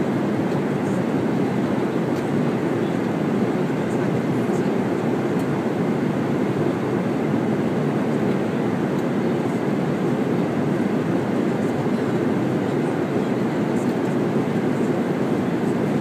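Steady cabin noise of a jet airliner in flight: an even, unbroken rush of engines and airflow.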